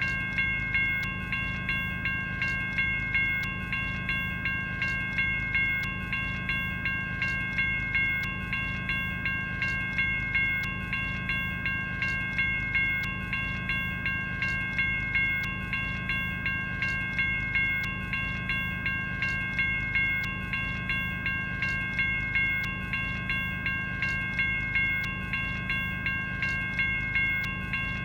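General Signals Type 1 electronic railroad crossing bell ringing steadily, a bright metallic ding repeated at an even, regular pace.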